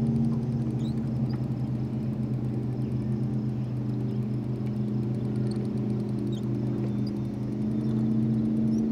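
Boat motor running steadily at trolling speed: an even low drone that holds the same pitch throughout.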